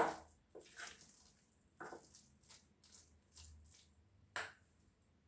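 Metal spoon mixing a mashed corn and spice filling in a stainless steel bowl: irregular scrapes and taps against the bowl, the loudest a little over four seconds in.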